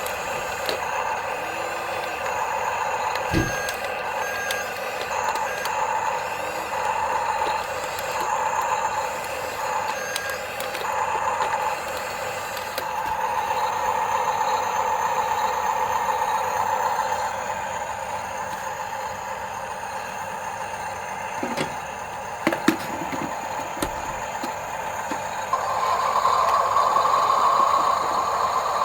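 Small electric gear motors of remote-control construction toys whining, starting and stopping in short runs about a second apart, then running longer, with a few sharp clicks partway through and a louder, higher-pitched run near the end.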